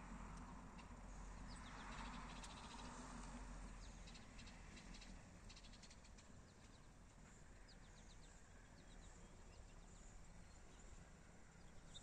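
Near silence: faint outdoor background with scattered quiet, high chirps and ticks, clustered in the middle of the stretch.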